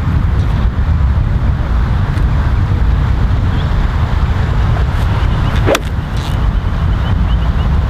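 Strong wind buffeting the microphone in a steady low rumble. About three-quarters of the way through, a single sharp crack of a golf club striking the ball.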